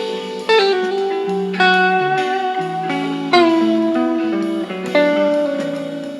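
Electric Stratocaster-style guitar through a Fender Blues Junior tube amp playing a slow single-note lead line. There are about four notes, each picked and held for a second or more, with a slide into one of them partway through.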